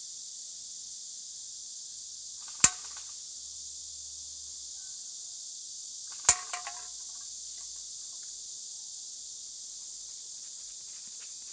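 Two sharp single shots from a SCAR-L electric airsoft gun (AEG) firing BBs, about three and a half seconds apart; the second is followed by a brief rattle. A steady high chirring of insects runs underneath.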